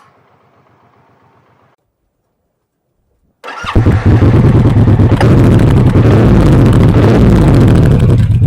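Suzuki Boulevard M109R's large V-twin engine starting about three and a half seconds in, catching at once and settling into a loud, steady idle. Before that, only a faint low pulsing and then a moment of quiet.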